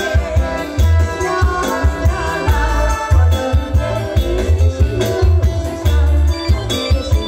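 Live band music amplified through PA speakers: a woman singing over keyboard and electric guitar, with a loud, steady bass beat.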